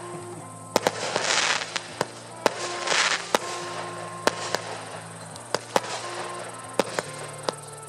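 Fireworks going off: about a dozen sharp bangs at uneven intervals, with two loud half-second hissing swells, over background music with long held notes.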